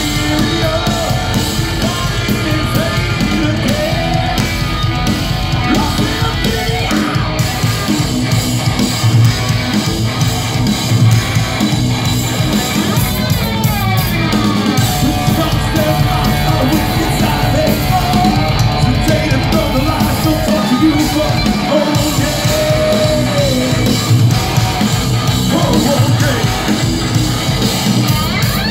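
Progressive metal band playing live: a singer over distorted double-neck guitar, keyboards and drums.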